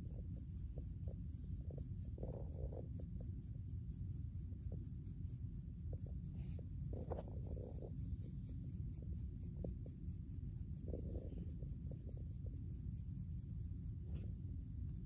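Fine-tooth comb scratching through short, coarse hair against a flaky, dandruff-covered scalp in short, irregular strokes, over a steady low rumble.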